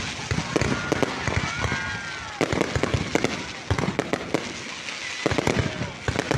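Fireworks going off: a dense, irregular string of sharp bangs and pops, with a high gliding tone about a second and a half in.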